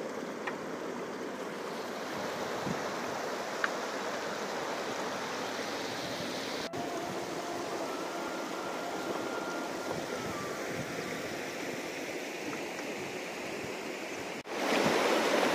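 Shallow river rushing over stones: a steady rush of flowing water. It breaks off for an instant twice and is louder after the second break near the end.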